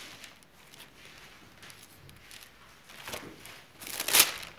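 Bible pages being leafed through: soft paper rustling, with one louder rustle about four seconds in.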